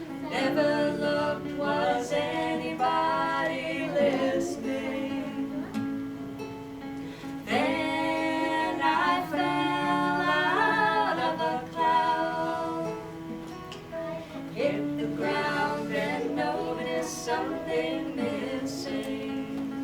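Live song: singing over acoustic guitar accompaniment, with held sung notes that swell louder in the middle.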